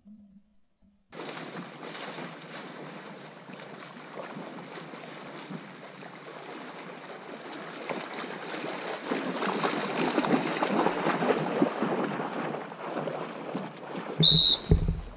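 Water splashing and sloshing as a retriever dog swims through shallow marsh water, starting about a second in and growing louder as the dog comes close. Near the end there are a few heavy low thumps and a brief high chirp.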